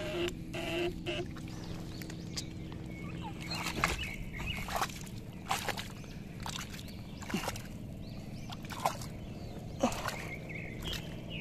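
Steady electrical hum of an eel electrofishing stunner running in the paddy water, with irregular splashes and squelches of muddy water as a bare foot churns the mud.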